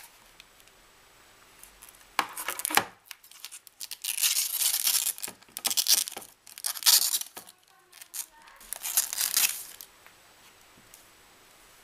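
Clear protective plastic film being peeled off a plastic phone cradle dock, in four bursts of tearing noise spread over about seven seconds.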